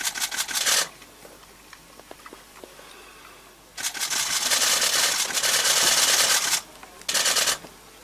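Camera shutters firing in rapid continuous bursts: a short burst at the start, a long burst of nearly three seconds from about four seconds in, and another short burst about a second later.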